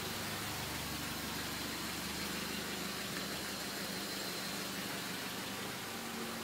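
Mercedes-Benz 190E engine idling steadily, under a constant hiss.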